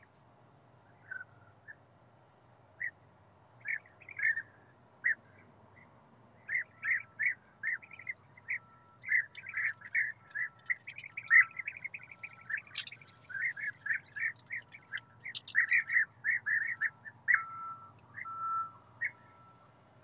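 European bee-eaters calling: short calls, a few scattered at first, then many overlapping from about six seconds in.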